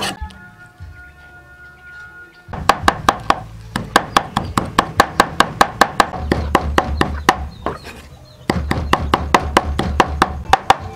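Cleaver chopping dried red chillies on a round wooden chopping board: quick, even knocks of the blade on the wood, about four or five a second. They start about two and a half seconds in and pause briefly near eight seconds.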